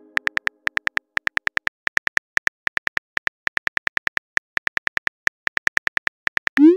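Simulated phone keyboard tap clicks as a text message is typed, several short clicks a second at an uneven pace, then a brief rising whoosh near the end as the message is sent.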